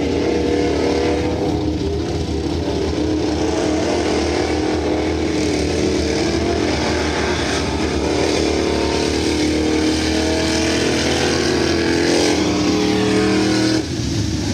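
Race trucks' engines running hard on a mud-racing track, a loud steady engine drone, with a sudden drop and change of sound about a second before the end.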